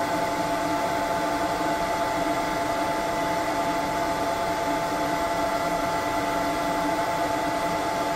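F1 laser engraver running steadily near the end of an engraving job on a metal pen: a constant hum with several steady tones.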